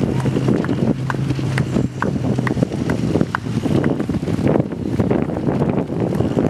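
Footsteps of many runners on a paved path, a patter of overlapping footfalls, with wind buffeting the microphone. A low steady hum sits under it for the first two and a half seconds or so.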